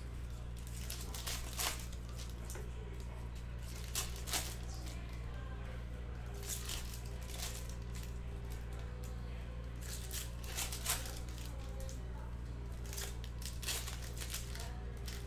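Foil trading-card packs being torn open and crinkled by hand, with short crackling tears every second or few over a steady low hum.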